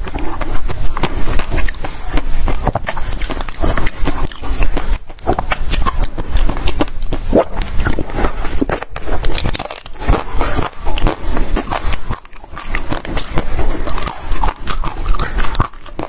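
Close-miked biting and crunching of frozen basil-seed ice balls: dense, irregular crackling crunches, with a few short pauses between bites.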